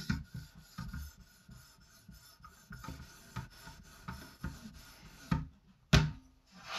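Stone of an Edge Pro guided sharpener stroked quickly and lightly along the edge of a small Japanese box-cutter knife: a run of gritty rasps, about two a second. The light, fast strokes polish the edge more than they cut it. A single sharp knock near the end.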